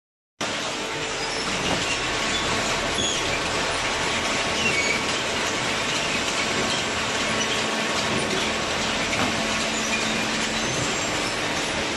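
Paper-baling machinery running steadily, a dense mechanical noise with scattered faint high squeaks. It drops out for a moment at the very start.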